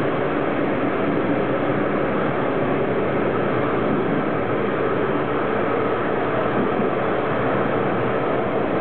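Train moving at speed: a steady, even rumble and rush of running noise with no breaks or changes.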